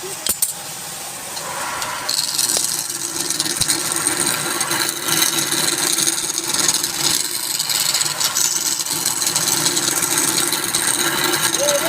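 Wood lathe running with a turning tool cutting into the spinning wood, a steady scraping hiss that starts about two seconds in over the lathe's hum. A couple of clicks come just before.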